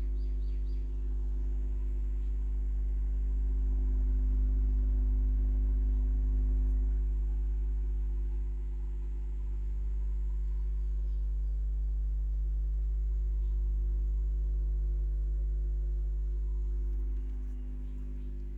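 Steady low electrical hum with a buzzy row of overtones from a subwoofer driven by an amplifier board on AC mains power with no audio playing. It swells slightly about four to seven seconds in.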